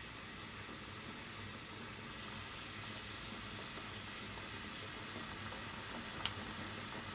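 Water at a rolling boil in a small metal saucepan on a gas burner: a steady bubbling hiss. A single sharp click comes near the end.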